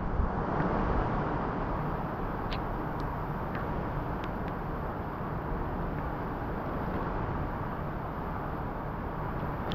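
Steady rushing noise of strong hurricane wind, with a few faint ticks in the first half.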